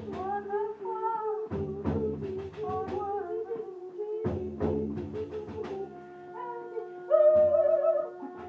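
Music: a steady drone with a low note returning every few seconds and plucked or struck accents, under a wavering singing voice that swells loudest about seven seconds in.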